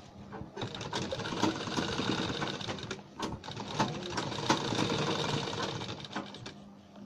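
Sewing machine running, stitching a long basting stitch through fabric in a fast, even run of needle strokes, with a short break about three seconds in, then slowing and stopping near the end.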